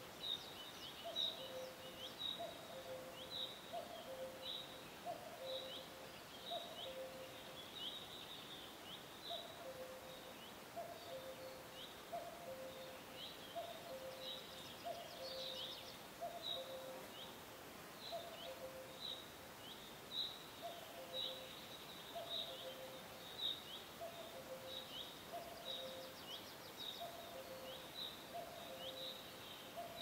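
Forest ambience of birds chirping: short, high, falling chirps repeating one to two times a second over a lower two-note call that repeats about once a second, with a faint background hiss.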